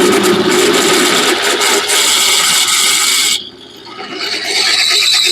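Electric drill boring into metal: the bit bites with a harsh grinding scrape, eases off briefly a little past halfway, then cuts again.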